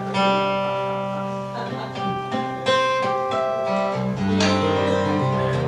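Acoustic guitar played solo: notes and chords plucked and strummed and left to ring.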